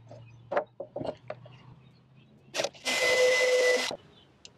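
A few handling knocks and clicks, then about three seconds in a power drill runs for about a second and cuts off suddenly, drilling the stop-pin hole through the plastic (UHMW) mainsail track.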